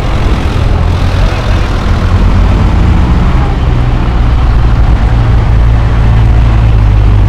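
Diesel tractor engines running as a line of tractors drives slowly past close by, a deep steady engine drone that grows louder and heavier over the last couple of seconds.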